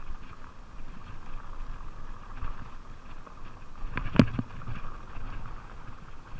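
Fuji Beartooth 27.5+ mountain bike rolling fast downhill on a dirt trail: steady tyre noise with small rattles and knocks from the bike. One sharp, loud clack comes about four seconds in as the bike jolts over a bump.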